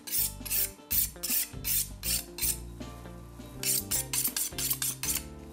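An 8-inch sushi knife's steel blade drawn quickly back and forth along a honing steel, the blade scraping with each stroke, about three or four strokes a second. The strokes pause for about a second midway, then resume. This is honing to bring back the edge of a blade that is getting dull.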